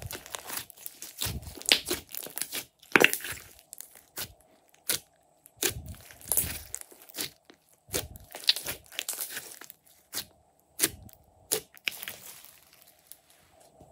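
A large mound of glossy slime being squeezed and folded by hand. It gives irregular wet pops and crackles, at times in quick clusters.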